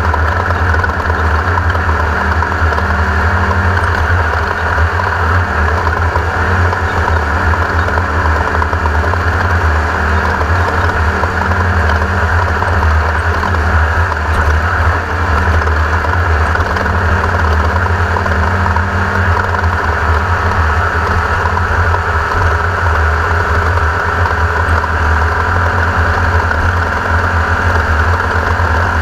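The air-cooled VW 1600 engine of a 1982 Race-co Class 1600 off-road race car, running loud and steady with no clear revving up or down.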